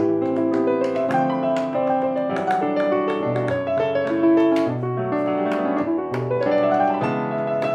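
Grand piano playing a busy passage of quick notes and chords, with a rising run about six seconds in.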